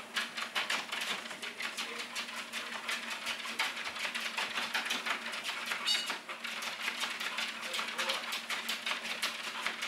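A dog's paws tapping quickly on a running Weslo treadmill belt, several taps a second, over the treadmill motor's steady hum. A brief high squeak comes about six seconds in.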